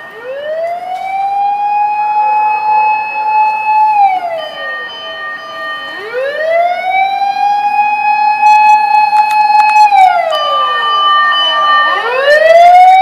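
Fire engine siren wailing: each cycle rises over about two seconds, holds, then falls away, twice over and starting up a third time near the end. A second, higher siren tone sounds steadily alongside it.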